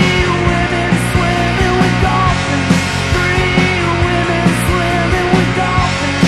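Indie punk rock band recording playing: a dense full-band sound over steady drum hits, with cymbal crashes about a second in and again a little past halfway.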